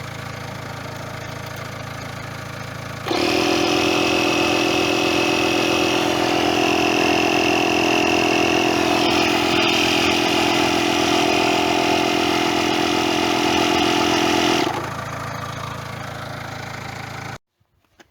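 An engine running steadily at one speed. About three seconds in it becomes much louder, with a steady hum and whine, and stays that way for about twelve seconds before dropping back. It cuts off suddenly near the end.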